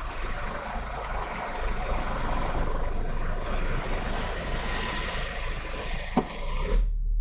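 Lorry cab noise while driving: a steady low engine rumble under a hiss of road noise. The hiss cuts off abruptly near the end, leaving only the rumble.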